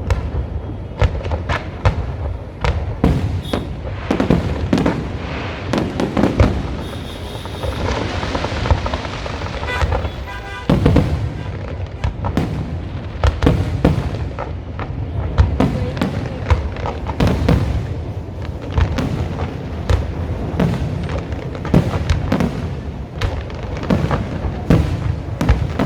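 Aerial fireworks display: a dense, continuous barrage of bangs and booms, many shells bursting close together, with a stretch of crackling about ten seconds in.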